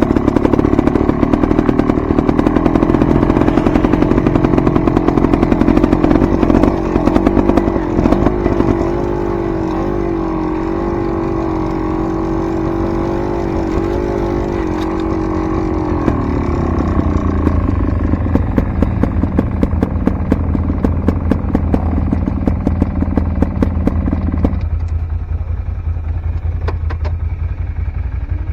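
Enduro dirt bike engine running under steady high revs, then easing off about two-thirds of the way in to a lower, steadier drone, with frequent rattling knocks throughout.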